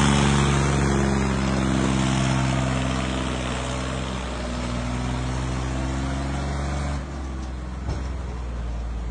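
Farmtrac tractor's diesel engine running steadily while pulling a heavily loaded sugarcane trailer, growing gradually quieter as it moves past, with a drop in level about seven seconds in.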